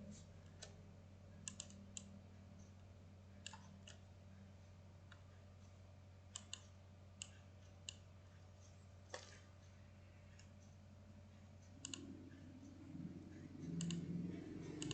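Faint computer mouse clicks, single and in quick pairs, at irregular intervals over a low steady hum. A low rumble builds near the end.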